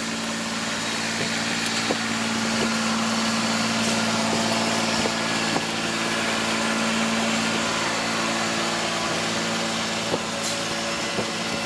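Steady running machinery: an even engine-like hum over a constant hiss, with a few light metallic knocks scattered through it.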